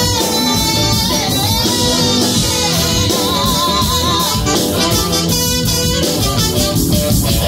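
Live funk-rock band playing: drum kit, bass, electric guitar, keyboard, trumpet and saxophone, with a woman singing lead.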